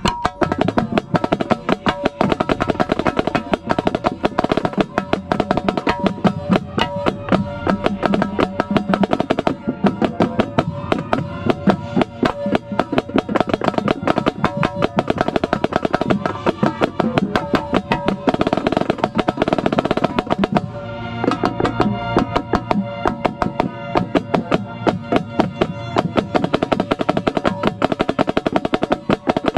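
Marching snare drum played right at the microphone, rapid stick strokes and rolls on an Evans head, with the marching band's sustained chords playing behind it. The strokes thin out briefly about two-thirds of the way through, then pick up again.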